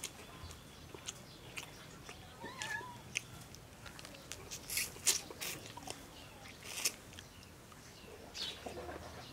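A man eating cooked boal catfish head by hand: wet lip smacks and chewing clicks, with a few louder smacks around five and seven seconds in.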